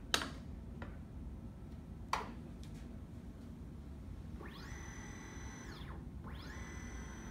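Two short clicks, one near the start and one about two seconds in, as the part is handled on the stage of a Keyence IM-7020 image measuring machine. Then a motor inside the machine whirs twice, each time rising in pitch, holding steady for about a second and winding back down.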